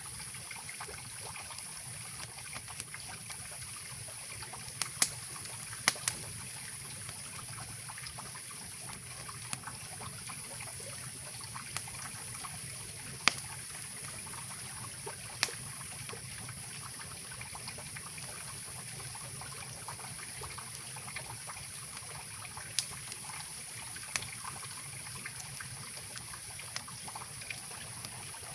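Mountain river rushing steadily, with a wood campfire giving sharp single pops every few seconds; the loudest pop comes about halfway through.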